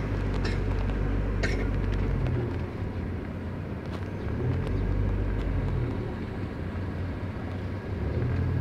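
Car in motion heard from inside: a steady low rumble of engine and road noise that swells and eases, with a few faint clicks in the first two seconds.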